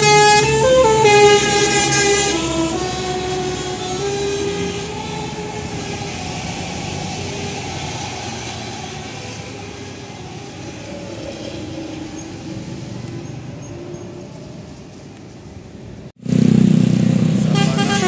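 Tour bus multi-tone musical air horn (telolet) playing a stepping melody, loud for the first few seconds and then fading away, over engine and traffic noise. Near the end the sound cuts abruptly to a loud, close bus engine.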